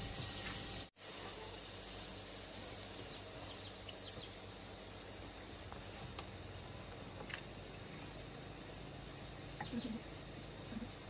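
Insects trilling in one steady, high-pitched drone, broken by a brief cut-out about a second in.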